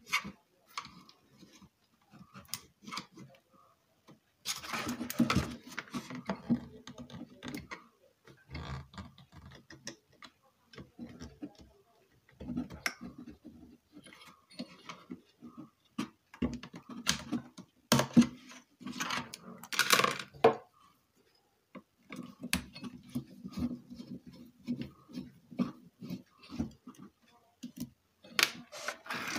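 Irregular clicks, taps and scraping from a screwdriver and hands working on metal chassis parts and an amplifier circuit board with an aluminium heatsink, with a few louder rattling stretches.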